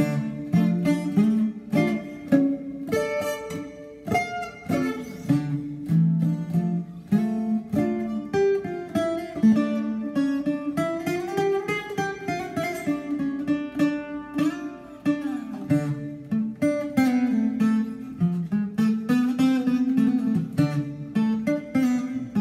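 Greek bouzouki played solo with a plectrum: a rebetiko melody picked in quick runs of single notes, with a few sliding notes around the middle.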